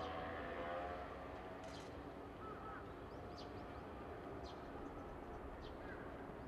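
Faint open-air background beside the railway tracks: a steady low rumble with a few short bird calls. A wavering whine made of several tones fades out in the first second.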